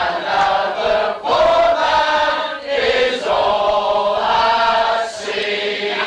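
Group of voices singing a song together in long held phrases, with brief breaks between them.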